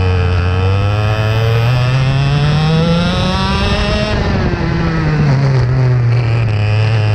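IAME X30 125cc two-stroke kart engine heard close up onboard, its pitch climbing steadily under acceleration for about four seconds, then falling away as the throttle comes off, and pulling up again near the end.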